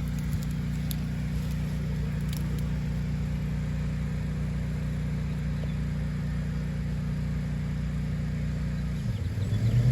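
A vehicle engine idling steadily, its pitch dipping and then rising about nine seconds in.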